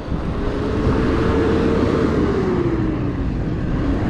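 Steady rumble of road and wind noise while riding a bicycle on a street, with a motor vehicle's hum that drops in pitch between about two and three seconds in, as of the vehicle passing.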